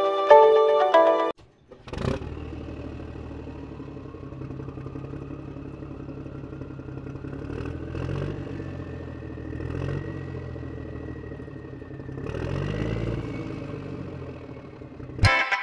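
Small DC gear motor of a homemade cardboard RC tractor running: a steady hum with a thin whine that slowly rises in pitch, swelling louder a few times.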